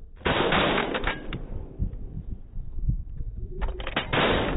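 Shotguns firing: a loud blast soon after the start, then a quick string of several shots from about three and a half seconds in, ending in another loud blast.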